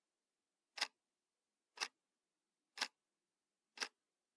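Clock ticking faintly and steadily, one tick each second, with silence between the ticks.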